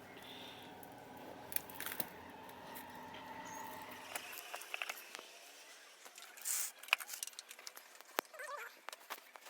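Scattered light clicks and knocks of hand tools and the tyre being handled while a motorcycle tyre is worked onto its rim, with a short hiss about six and a half seconds in. A low background hum stops about four seconds in.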